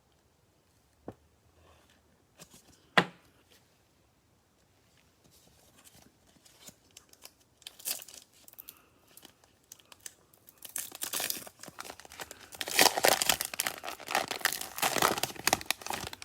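A cellophane card-pack wrapper torn open and crinkled, the crinkling growing dense and steady for the last six seconds or so. Two sharp clicks come about one and three seconds in.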